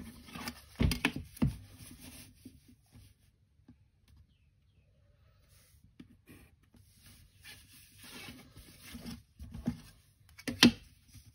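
Pencil drawing lines along a plastic set square on paper: scratchy strokes in two spells, with a few sharp knocks as the set square is moved and set down, the loudest near the end.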